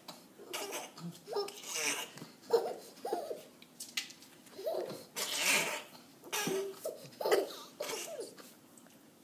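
Baby giggling in short bursts, each one brief and high-pitched, repeated about once a second.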